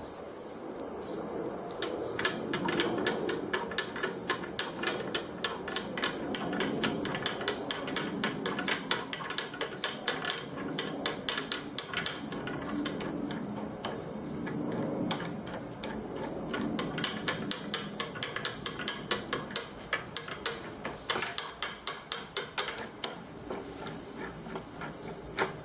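Rapid, irregular mechanical clicking and light tapping, several clicks a second, thickest a little after the middle.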